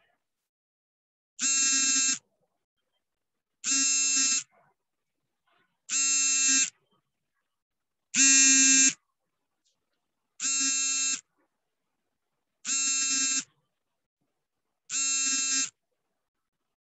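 Electronic alert beep repeating about every two and a quarter seconds, each beep under a second long and buzzy, with silence between. It sounds while the call's network connection is unstable and the video has gone blank.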